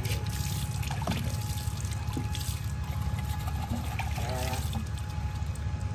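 Liquid poured from a plastic bottle into a plastic basin of water, trickling and splashing steadily.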